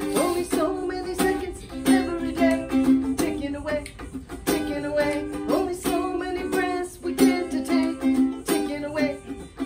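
Ukulele strumming chords steadily in an instrumental break of a song, with no singing.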